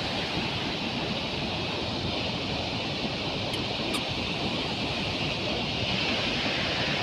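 Steady rushing noise, even throughout, with two faint high ticks about halfway through.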